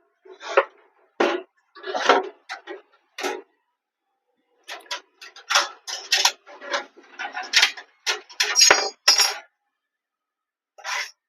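Metal clinks and clatter, a string of short knocks and rattles with pauses, as the parts of a desktop PC case are handled and fitted together.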